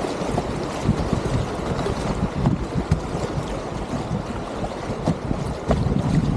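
Whitewater rapids rushing and splashing around a kayak, with irregular low thumps of water and wind buffeting the camera microphone.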